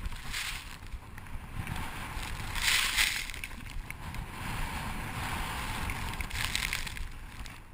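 Skis turning through deep powder snow: the snow hisses in surges with each turn, the loudest about three seconds in. Wind buffets the camera microphone underneath.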